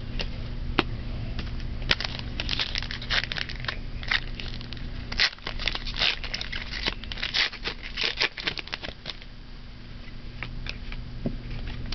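A foil-wrapped trading-card pack being torn open and crinkled by hand: a dense run of crackles and rips through the middle seconds, thinning out near the end.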